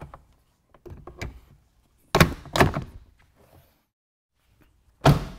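A Jeep Wrangler factory half door's window upper being set into the door, with a cluster of knocks about two seconds in. Then the half door is shut with one sharp knock about five seconds in.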